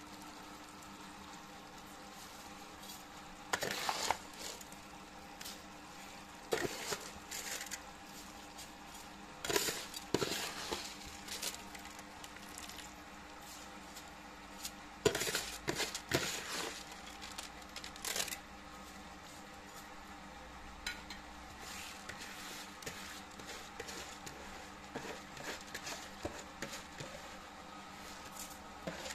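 A metal ladle clinks and scrapes against a cast-iron kazan in several short clusters as rice is spread over the simmering pilaf base, with a low sizzle underneath.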